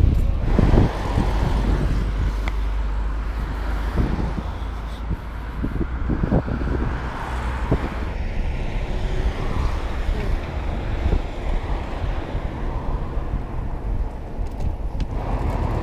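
Road traffic noise over a steady low rumble, with a few brief knocks.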